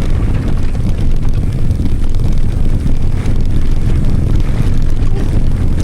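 Steady rumble of wind on the microphone mixed with tyre noise from a mountain bike rolling over rough trail through heather.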